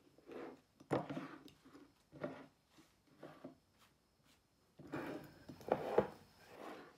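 Small glass baby-food jars with metal lids being shuffled and set down on a table: a scattered run of knocks and short scrapes, busiest about five to six seconds in.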